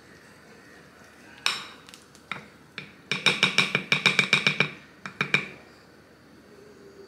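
Metal wire whisk clinking against a glass mixing bowl while mixing flour. A single sharp clink is followed by a few scattered ones, then a quick run of about seven clinks a second. The glass rings after each strike.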